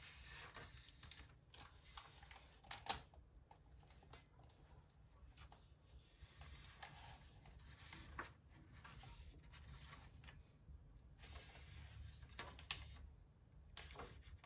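Pages of a new book being opened and turned by hand: quiet paper rustles in several short runs, with soft clicks and a sharp tap about three seconds in.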